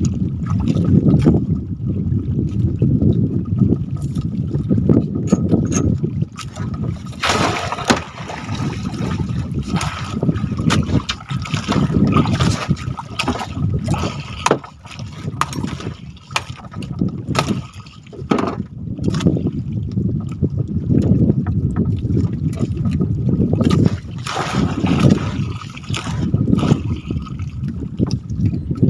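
Water sloshing and gurgling against a small fishing boat, with a low rumbling noise that swells and fades and many sharp knocks and clicks scattered throughout.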